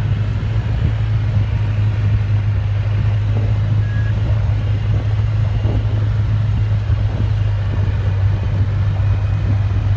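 Polaris Ranger XP 800 side-by-side driving at a steady speed on a dirt road: an even, steady engine drone with tyre noise from the dirt surface.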